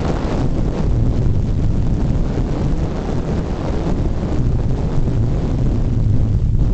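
Wind rushing and buffeting on the microphone of a camera moving fast along a road, over a low steady rumble.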